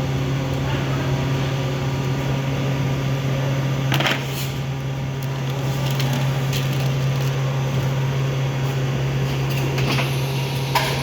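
Haitian MA530GIII SE two-colour injection moulding machine running a chair mould: a steady hum, a short hiss about four seconds in, and a few clicks near the end.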